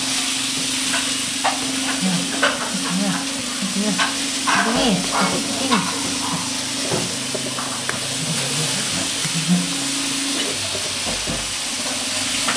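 Steady hiss with scattered soft crackles and rustles as a kitten is touched and squirms on a wicker chair seat, under a steady low hum.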